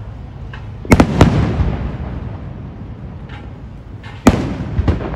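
Aerial firework shells bursting: a loud pair of bangs about a second in and another pair near the end, each trailing off in a rolling echo.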